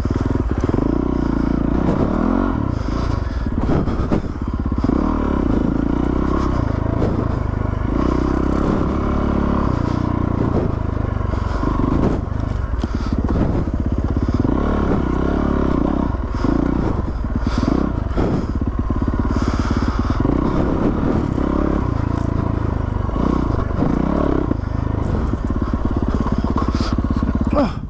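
Yamaha WR450 dirt bike's single-cylinder four-stroke engine running off-road, its note rising and falling over and over as the throttle is worked. Occasional clatters and scrapes are mixed in.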